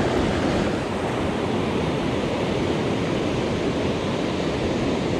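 Steady wash of ocean surf breaking and running over shallow sand, with wind on the microphone.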